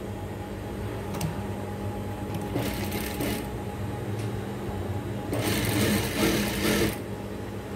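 Sewing machine stitching a seam through cotton fabric in two short runs, the first about two and a half seconds in and a longer, louder one about five seconds in, over a steady low hum.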